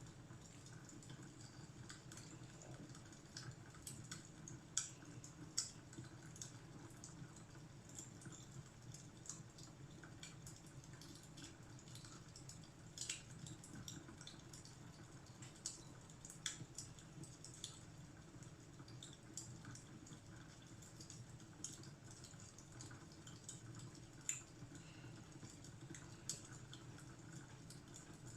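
Wood fire crackling faintly, with irregular sharp pops and snaps over a low steady rumble.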